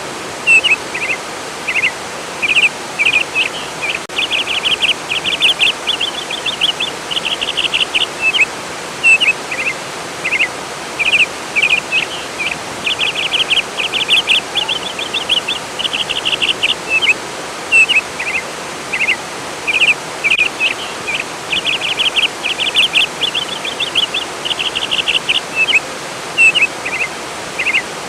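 A songbird singing phrases of quick chirps and rapid trills, repeated every few seconds, over the steady rush of flowing water.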